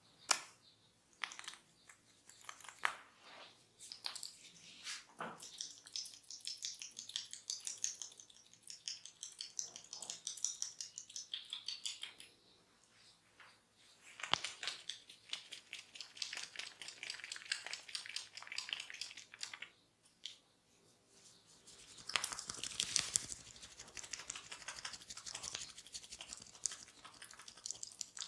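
Close-miked rubbing and crackling of hands massaging skin and hair, in long stretches of dense high-pitched crackle with a few sharp clicks near the start.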